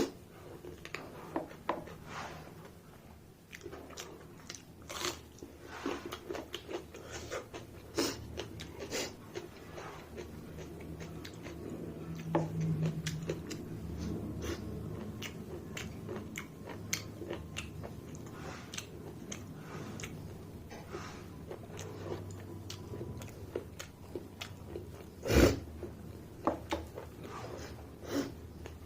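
Close-up chewing and biting of a meal of rice, buff fry, saag and curd, with many short wet mouth clicks. One loud knock near the end.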